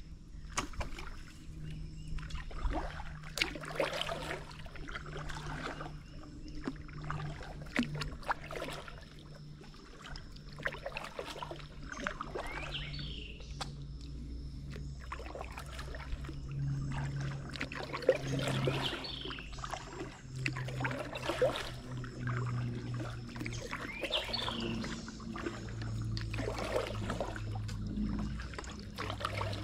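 Kayak paddle strokes: the blade dipping and water trickling and splashing off it every second or two, over a steady low hum that drifts slowly in pitch.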